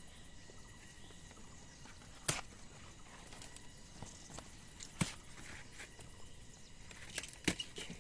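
A few short, sharp clicks or snaps, about four, spread over several seconds above a faint, steady outdoor background.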